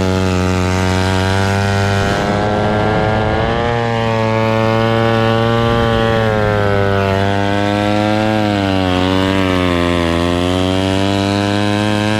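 1957 Danarm Fury chainsaw's Villiers 5F 98cc two-stroke engine running steadily at speed. About two seconds in it turns rough for a moment, and near the end its pitch sags and then picks back up.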